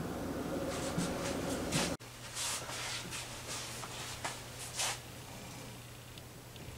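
Soft handling sounds at a floury kitchen counter: a few light taps and rustles as a round of dough is laid into a plastic hinged pie press and filling is spooned in, over a steady hum. The background hum changes suddenly about two seconds in.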